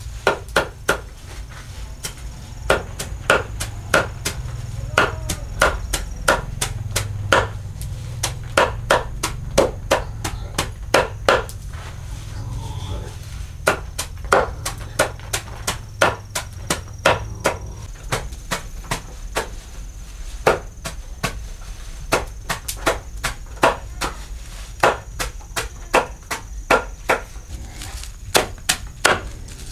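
Repeated chopping with a blade on a chopping block, about two or three strikes a second, with a couple of short pauses, over a steady low rumble.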